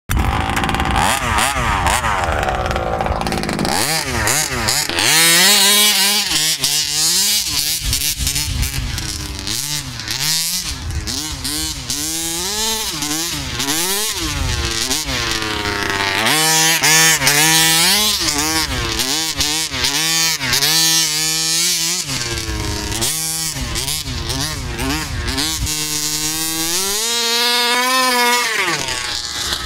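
Rovan Baja 1/5-scale RC buggy's small two-stroke petrol engine, revved up and down again and again as it is driven. There is a long high rev near the end.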